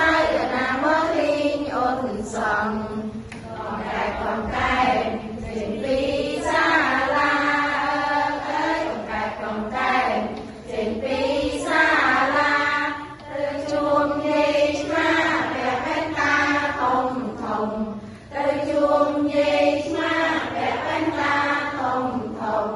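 A group of women singing a children's action song together, a simple chant-like tune.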